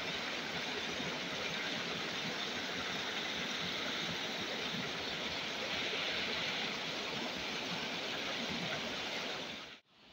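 Steady rush of a small river flowing over rocks, cutting off abruptly near the end.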